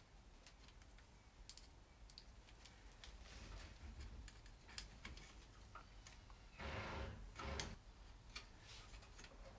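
Faint scattered clicks and small metallic taps from a hand tool working at the slip-on exhaust's joint to the link pipe, with two short, louder scuffs about seven seconds in.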